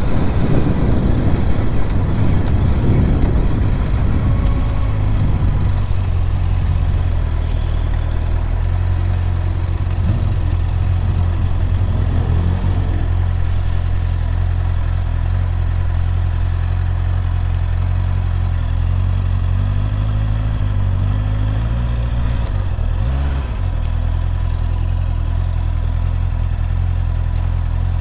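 Sport motorcycle engine pulling in with wind and road noise for the first few seconds, then idling steadily at a standstill. The idle wavers briefly a little past two-thirds of the way through.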